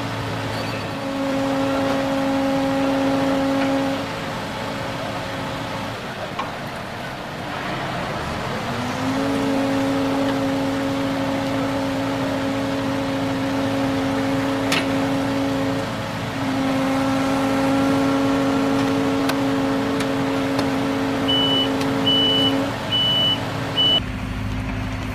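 Heavy truck-mounted cranes' diesel engines and hydraulics straining at raised speed while lifting an overturned excavator. The drone rises in pitch as it comes up to speed, holds steady for stretches of several seconds and drops back in between. Near the end a high beep sounds four times.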